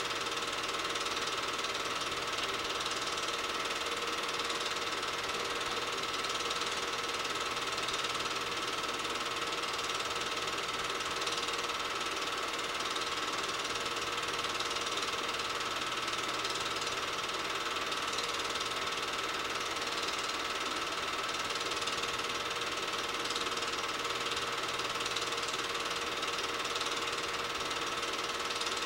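8mm film projector running, a rapid, even mechanical clatter from the film transport with a steady whine under it.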